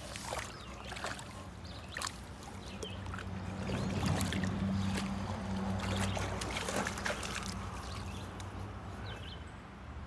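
A boxer dog splashing and sloshing in a shallow brook as she noses and digs in the water, the splashing loudest in the middle. A low steady hum runs underneath.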